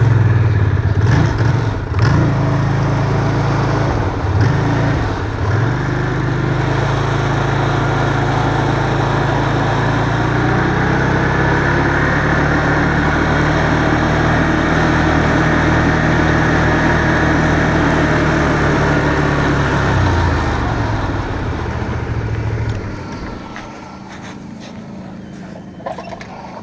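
Snowmobile engine revving as the machine pulls away, its pitch rising and falling for the first few seconds, then running steadily at cruising speed. About twenty seconds in the engine eases off, and it dies down about three seconds later as the sled stops.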